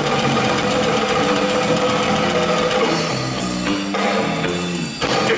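Black metal played live at full volume through a concert PA: a drum kit with low, distorted notes stepping up and down in pitch. The sound drops out sharply about five seconds in, then comes straight back.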